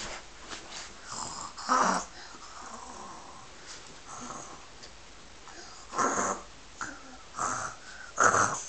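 Snoring in sleep: irregular short, rough snores, one about two seconds in and three more in the last three seconds, the last the loudest, with softer breathing between.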